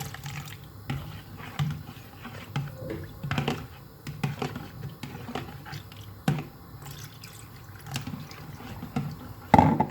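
Freshly squeezed lime juice being poured into ginger juice, the liquid splashing and dripping into the container, with scattered light taps and clinks of the containers.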